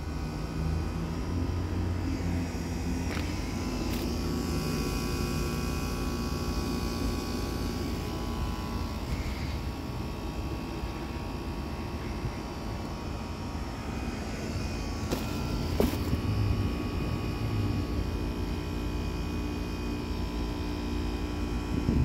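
Bryant Legacy Line 214DNA heat pump outdoor unit running through a defrost cycle: a steady compressor hum with several steady tones and a couple of brief clicks, the outdoor fan stopped.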